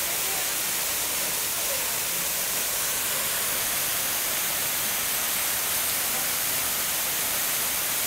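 Steady rush of a waterfall, an even hiss that is strongest high up and doesn't change.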